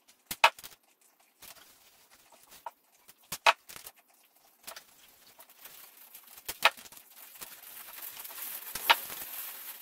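Handling of tape rolls and paper templates on a wooden workbench while double-sided tape is applied: a few separate sharp clicks and snaps, with a faint high hiss building in the last few seconds.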